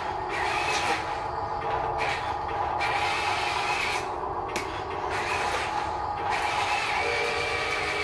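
Small electric drive motor and gearbox of a Huina radio-controlled dump truck whining as it drives and turns, with the high gear noise cutting in and out as the throttle is worked.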